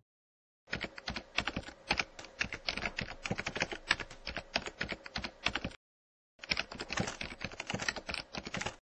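Typing on a computer keyboard: a quick run of key clicks lasting about five seconds, a short pause, then a second run of clicks.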